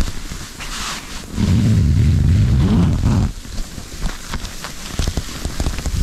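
Wind in a winter snowstorm buffeting the microphone in a strong gust for about two seconds. Scattered crackling and clicks follow.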